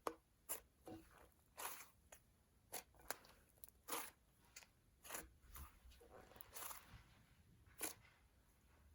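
Cloud dough slime being squished and played with by hand: faint, soft crunching noises, about a dozen short ones at irregular intervals.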